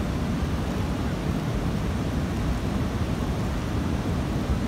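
Floodwater of the swollen Swat River rushing past in a torrent, a steady, deep rushing noise with no breaks.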